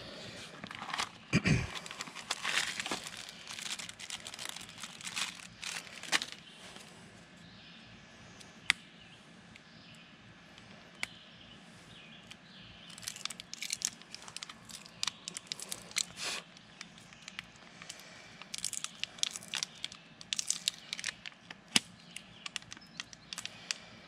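Packaging crinkling and tearing by hand as a tire plug kit is unwrapped and the plug strips pulled out, in two spells of crackling with a quieter stretch between. A dull knock about a second and a half in.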